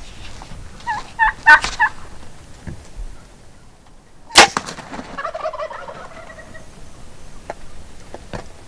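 Wild turkey tom gobbling loudly, then a single sharp snap about four seconds in, followed by another gobble right after.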